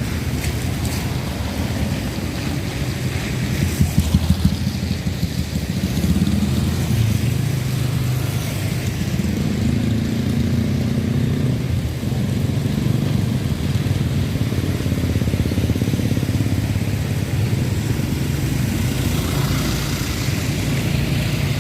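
Road traffic at a junction: motorcycle and car engines running and passing in a steady low hum, with a short cluster of sharp knocks about four seconds in.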